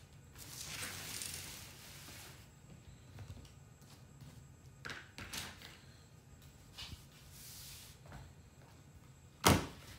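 Handling noises on a work table: soft rustling and sliding of fabric and board at first, then a few scattered light taps and clicks, and one sharp knock near the end.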